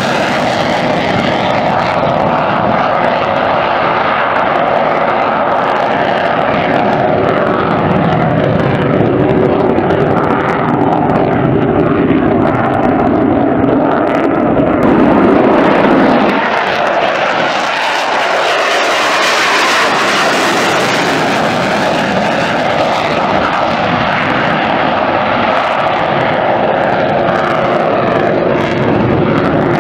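F-16D fighter jets climbing away in afterburner: a loud, continuous jet roar that swells to its loudest about halfway through, then thins out.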